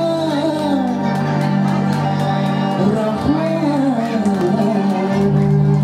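A man singing into a microphone over live electric-keyboard accompaniment. The bass note changes a little before the end.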